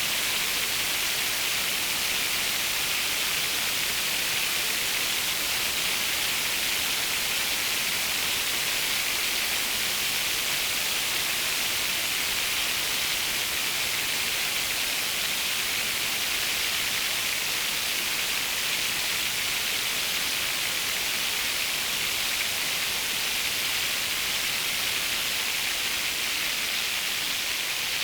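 Synthesized rain from a Eurorack modular: Mutable Instruments Plaits' particle-noise crackle, brought out by a Magneto, layered over noise from a Kinks module. It makes a steady, bright hiss like a heavy downpour, close to the sound of something frying.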